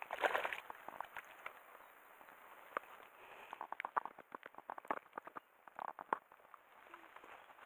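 A hooked herabuna (Japanese crucian carp) splashing at the surface as it is played in and brought over the landing net. A short splash comes just after the start, then a quick run of small clicks and rustles through the middle.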